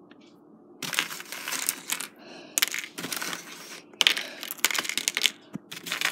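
Crunching, crinkling handling noise in several bursts, starting about a second in, as small pretzels are handled and set onto a rice cake on a paper plate.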